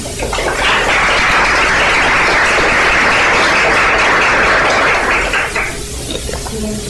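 Audience applauding at the end of a talk, dying away about six seconds in.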